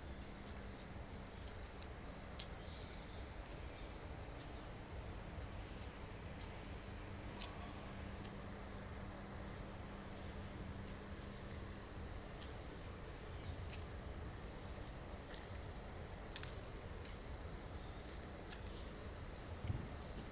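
A steady, fast-pulsing high trill of crickets chirring at night, with a handful of short, sharp clicks or taps scattered through it and a faint low hum in the first half.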